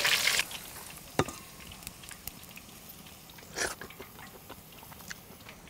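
Hot oil sizzling briefly as fried pork is lifted from the pan with a metal skimmer, then quiet with one sharp click about a second in and a short rustle a little past halfway.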